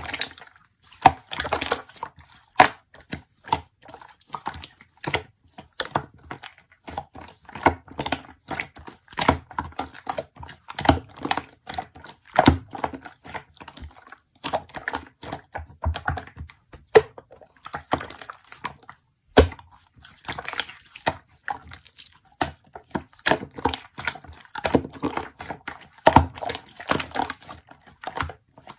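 Close-up handling noise: a steady stream of irregular small clicks, taps and crunches.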